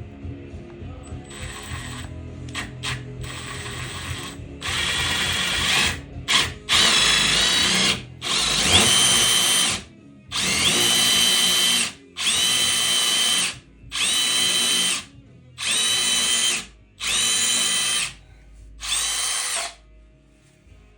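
Power drill fitted with a concrete bit, run in about a dozen short trigger bursts: each time the motor spins up with a rising whine, holds for a second or so and stops. The first few bursts are fainter, and the later ones are loud and evenly spaced.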